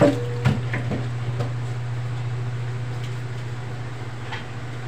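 A few knocks and clatters as a plastic basin is set down in a stainless steel sink, mostly in the first second, with one faint knock near the end. A steady low hum runs underneath.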